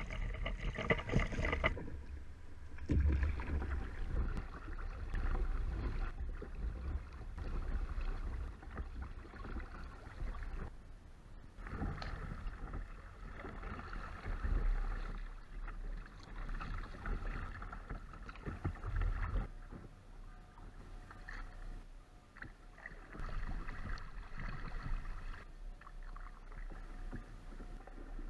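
Water splashing and lapping around a stand-up paddleboard as it is paddled, heard through an action camera mounted on the board, with wind rumbling on the microphone. The sound rises and falls irregularly.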